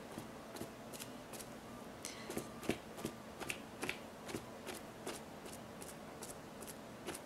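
A paint-loaded sponge dabbing against a leather boot: a run of faint, soft pats, about three to four a second.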